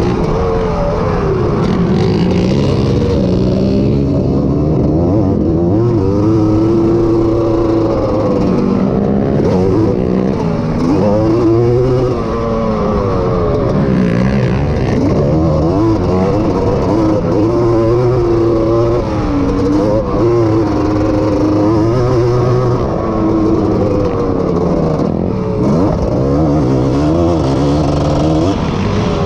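Honda ATC250R three-wheeler's two-stroke single-cylinder engine at race pace, heard close up from the machine itself. The revs climb and drop over and over as the rider throttles, shifts and backs off through the track.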